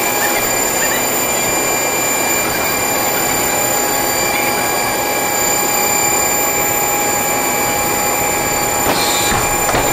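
Boeing 767 main landing gear retracting under hydraulic power: a loud, steady mechanical whine with several high tones over a rushing noise, from the hydraulic system driving the gear up into the wheel well.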